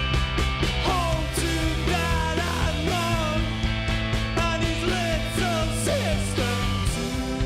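A rock band playing live: drums with cymbal hits, a steady synth bass line stepping between held notes, and guitar phrases that slide and bend in pitch.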